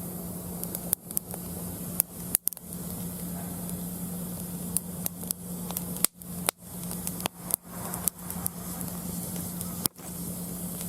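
Mixed hardwood burning in a fire pit stand: a steady hiss of the fire with sharp, irregular crackles and pops scattered throughout.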